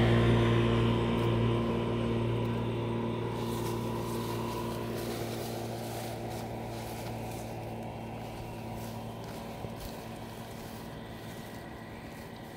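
A motor engine running at a steady pitch. It comes in abruptly and then slowly fades over the following seconds.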